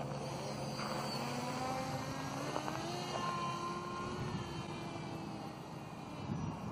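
Electric motor and propeller of an RC microlight trike model in flight: a steady whine that climbs in pitch about two and a half seconds in and then holds.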